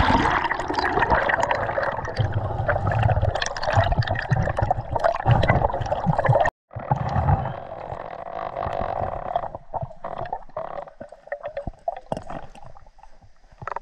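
Muffled underwater bubbling and gurgling of river water heard through a GoPro in a dive housing, with scattered clicks and low rumbles; the sound drops out briefly about halfway through.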